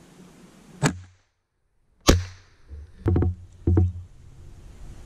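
A series of sharp knocks: one about a second in, a louder one with a short ringing tail about two seconds in, then two quick clusters of rapid knocks.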